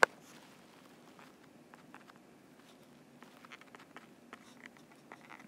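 Stylus tapping and sliding on a tablet screen during handwriting: faint, scattered light taps, with one sharper click at the very start.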